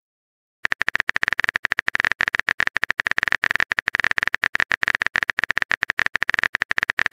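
Keyboard-typing sound effect: a fast, even run of sharp clicks starting about half a second in, as a text message is being typed.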